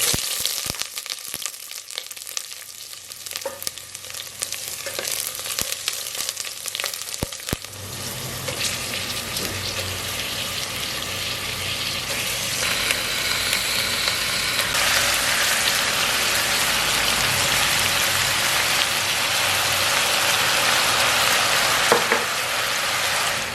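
Food sizzling in a hot pan, with clicks and knocks of utensils in the first several seconds. The sizzle grows louder and denser about eight seconds in and again about fifteen seconds in, then cuts off suddenly.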